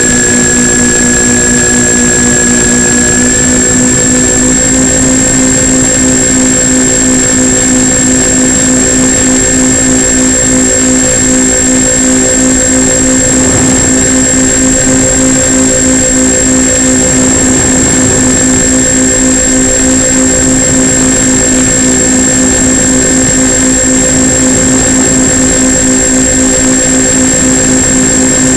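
Twin electric motors and propellers of a Multiplex Twinstar II model plane running steadily in flight, picked up by the onboard camera: a constant drone that rises slightly in pitch about three to four seconds in, with a thin high-pitched whine above it.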